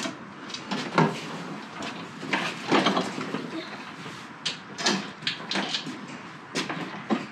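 Irregular knocks, clunks and thumps on a wooden trailer deck as a Toro TurfMaster 30 walk-behind mower is rolled onto it and set in place.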